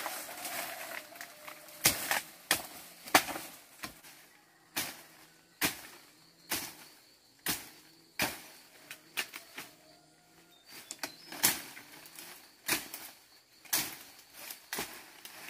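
Repeated sharp strikes of a hand tool, about one a second and uneven in loudness, as in chopping or hoeing to clear ground.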